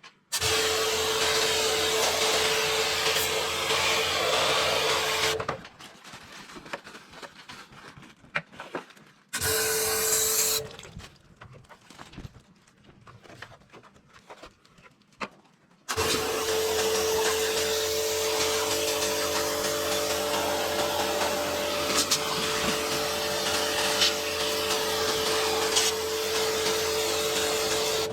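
Electric jet cleaner (pressure washer) switched on and off in three runs: about five seconds at the start, a one-second burst around ten seconds in, then about twelve seconds from sixteen seconds on. Its motor gives a steady hum over the hiss of the spray.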